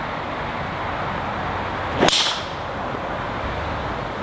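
A golf driver striking a ball off the tee: one sharp crack of the clubhead about two seconds in, with a brief ringing after it.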